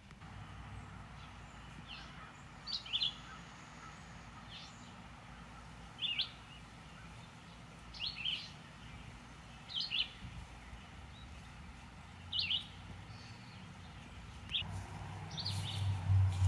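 A small bird chirping: short, high chirps every second or two, sometimes in quick pairs. Underneath is a steady low rumble that gets louder near the end.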